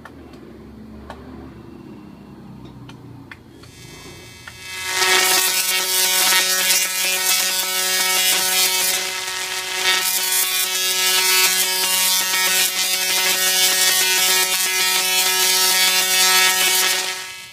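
Tesla coil firing sparks: a loud, steady, pitched buzz starts about five seconds in, after a few faint clicks and a brief quieter buzz, holds for about twelve seconds, and cuts off near the end.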